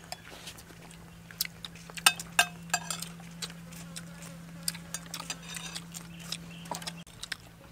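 People eating: spoons clicking against china plates, with chewing and lip-smacking sounds as short sharp clicks, thickest about two to three seconds in. A steady low hum underneath stops about seven seconds in.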